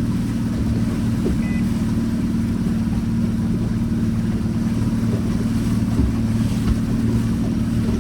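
Motorboat engine running steadily underway, a low even drone with a hiss of wind and water over it.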